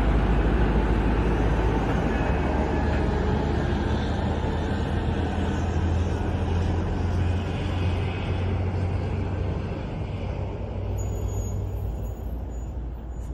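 Motor vehicle running, a steady low engine rumble with road noise that eases slightly toward the end.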